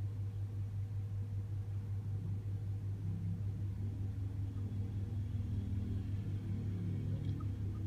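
Steady low droning hum, with faint wavering tones joining it from about halfway through.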